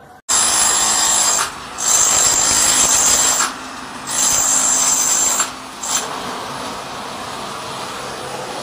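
A power tool working on a bathroom wall during renovation, running in three bursts of about a second and a half with short pauses between, then going on lower and steadier from about six seconds in.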